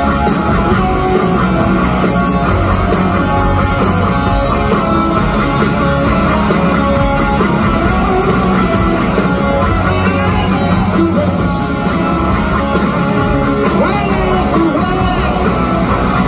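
Live rock band playing loudly through an arena PA, picked up by a phone's microphone: electric guitar from a white hollow-body guitar through Marshall amplifiers, over drums and bass, with singing in the later part.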